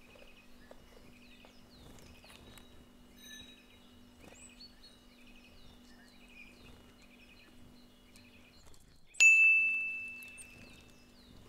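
Small birds chirping in short repeated calls over a low steady hum. About nine seconds in, a single loud bell-like ding rings out and fades over a couple of seconds.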